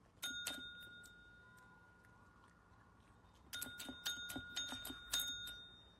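A small metal bell rung: two strikes just after the start, then a quick run of strikes from about three and a half seconds in, each leaving a high ringing tone.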